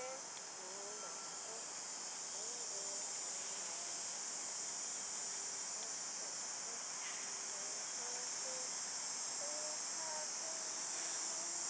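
Steady, high-pitched buzzing of an insect chorus, crickets or cicadas, holding on without a break.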